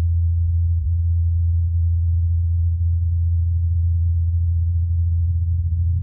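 Low, steady hum of the Mars helicopter Ingenuity's rotor blades spinning at about 2,537 rpm in flight, picked up by the Perseverance rover's microphone through the thin Martian air.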